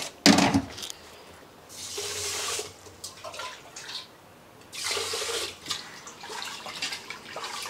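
Water running into a steel pot to wash rice, in two short spells about two seconds in and again about five seconds in. A sharp clank of steel vessels comes just at the start.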